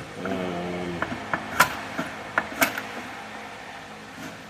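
Sharp knocks and clicks, two of them louder, as the jammed, bent drawer of a hydraulic hose crimper's steel case is pulled and worked. A short hum of a voice comes first.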